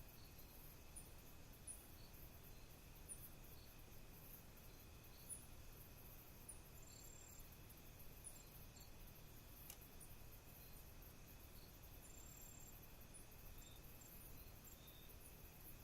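Faint night chorus of insects such as crickets: a steady high-pitched shimmer with short high chirps about once a second and a thin steady whine beneath. A few longer high notes come in now and then, and there is one faint click near the middle.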